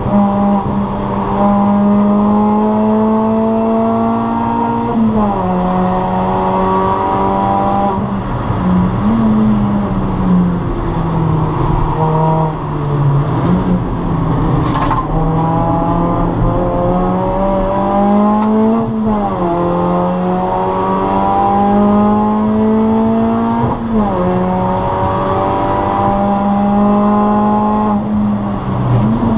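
Suzuki Swift Sport's four-cylinder engine heard inside the cabin under hard acceleration. The revs climb steadily and drop sharply at each upshift, four times, with the engine easing off and back on through a stretch of corners in between.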